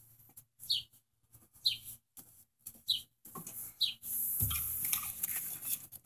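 A bird chirping, one short high chirp about once a second. About four seconds in, a thump and a steady hiss start and cover the chirps.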